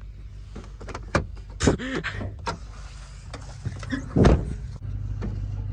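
Clicks and a short creak from the cab of a 2008 Dodge Dakota as the door is opened and the hood release pulled, with a heavy thunk about four seconds in, over a steady low hum.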